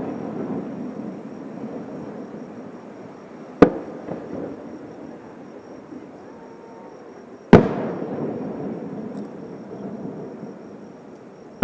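Aerial firework shells bursting: two sharp bangs about four seconds apart, each followed by a rolling rumble that dies away over a couple of seconds.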